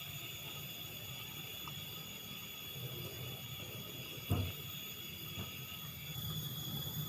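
Wind buffeting the microphone as an uneven low rumble, over steady high-pitched tones, with a single handling thump about four seconds in.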